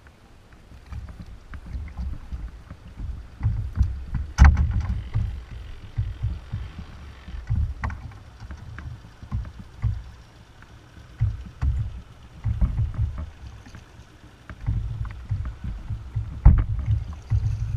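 Knocks and bumps on a plastic kayak's hull and gear as the angler moves about in the seat, stows the fish and takes up the paddle. They come as uneven low thuds, with a sharp knock about four seconds in and another near the end.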